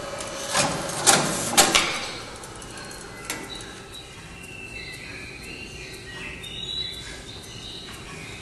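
Small kiosk card printer working: a run of sharp mechanical clacks and a sliding feed in the first two seconds as the printed stamp card is fed out, with one more clack a little later. Faint high chirps over a low steady hum follow.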